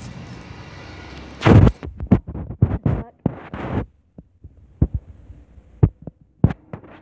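Irregular low thumps and knocks of handling noise from the handheld recording device as it is carried along while walking. The loudest comes about a second and a half in, with a dense run until about four seconds and sparser single knocks after that.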